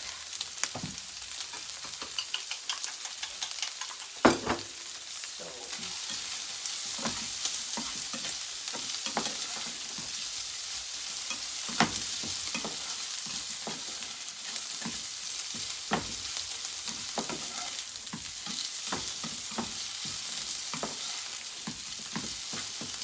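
Eggs with chopped steak and vegetables sizzling in a frying pan, with a steady hiss and frequent short clicks and scrapes of a spatula against the pan, two of them sharper about 4 and 12 seconds in.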